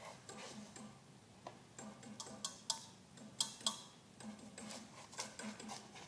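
Scattered light clicks and taps of people moving about a stage and handling props on a table, with a few sharper clicks in the middle.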